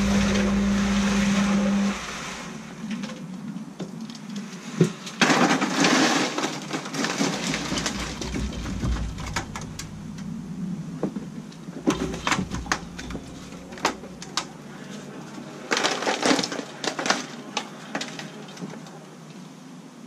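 Concrete mixer running with a steady hum that stops about two seconds in, followed by irregular scraping and knocking as the concrete mix is handled.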